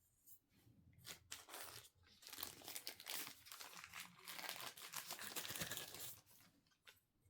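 Product packaging being handled and opened: a dense run of rustling and crackling from about a second in to about six seconds, thinning to a few small clicks near the end.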